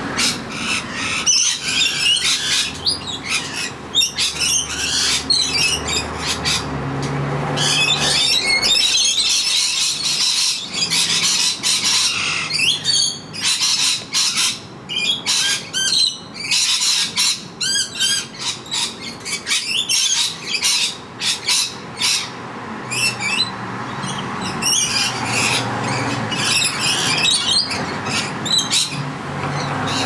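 Rainbow lorikeets feeding, giving quick shrill screeching and chattering calls in close runs, densest in the middle. A low engine drone sits underneath at the start and again near the end.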